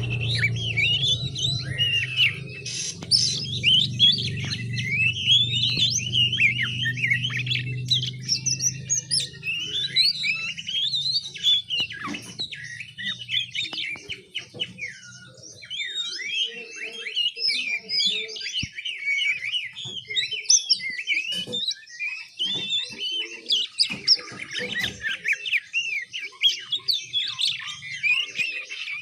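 Young oriental magpie-robin (kacer) giving its juvenile practice twittering (ngiriwik): a fast, continuous run of high, warbling chirps and squeaks, the subsong of a fledgling learning to sing. A low hum sits underneath for about the first half.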